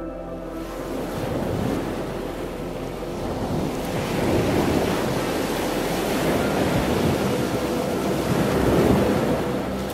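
Ocean surf breaking and washing around rocks: a steady rushing that swells and eases, louder about four seconds in and again near the end.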